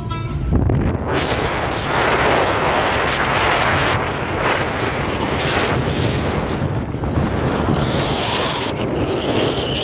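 Wind gusting over the microphone of a camera on a moving car, over steady road noise.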